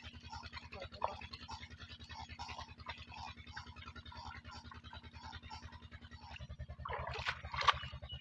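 Water splashing from a bamboo spout into a small muddy pond, over a fast, steady low pulsing. About six seconds in, it changes to louder running water, with a couple of sharp splashes near the end.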